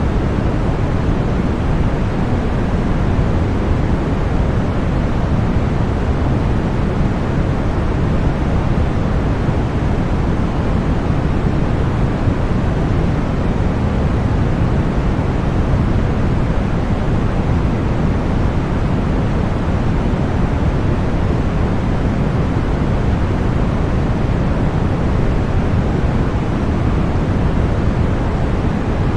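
Continuous synthesized deep white noise: an even, unchanging rush that is heavier in the low end than in the highs.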